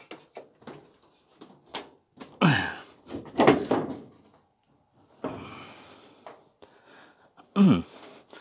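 Knocks and thunks from a condenser dryer's sheet-metal cabinet as it is tipped over and shifted by hand, with a scraping slide partway through.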